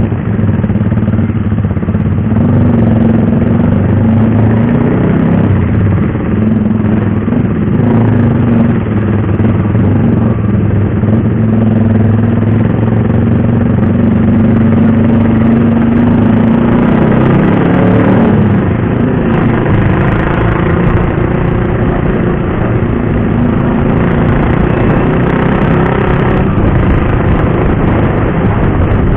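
KTM RC 390 single-cylinder engine running on the move at fairly steady revs. About 18 seconds in, its note sweeps in pitch, then holds steady again.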